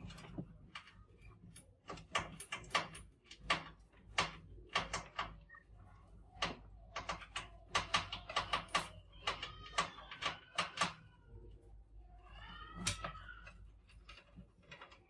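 Trapped mice scrambling inside a glass-and-wire-mesh tank trap: rapid, irregular clicks and scratches of claws on the glass and mesh. Squeaking comes in about two-thirds of the way through and again near the end.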